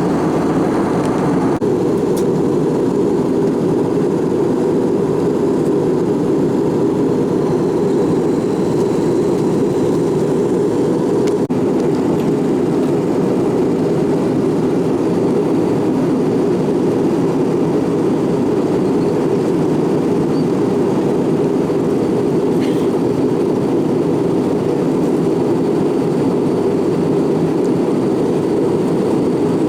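Steady noise inside the cabin of an Airbus A319-112 with its CFM56 turbofans running: a deep, even rush of engines and airflow. The upper part of the sound drops away slightly about a second and a half in.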